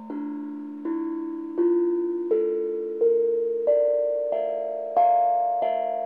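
Handmade steel tank drum (tongue drum) struck with felt-tipped mallets: single notes at an even pace, about one every 0.7 seconds, climbing step by step up the scale, each note ringing on beneath the next.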